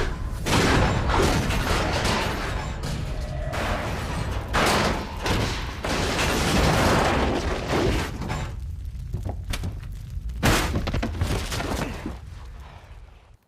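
Explosion sound of a nuclear blast: a continuous heavy rumble broken by several sharp crashes and shattering debris, dying away about a second before the end.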